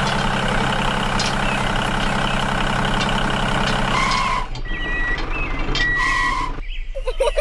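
Tractor engine sound running steadily, which drops away about four and a half seconds in. Two short high beeps follow, typical of a reversing alarm, as the tractor backs up to a trailer.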